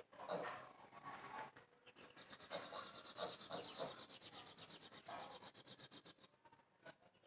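A bird trilling high and fast for about four seconds, starting about two seconds in, over faint talking-like sounds.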